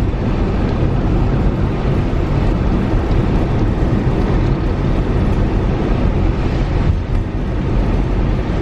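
Steady road noise heard inside a moving car: low engine hum and tyre rumble.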